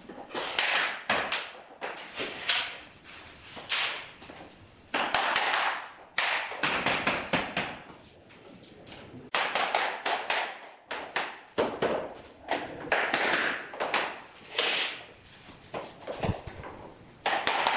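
Laminate floor planks being knocked together at their joints: clusters of sharp taps and knocks, with stretches of scraping as planks are slid into place on the underlay.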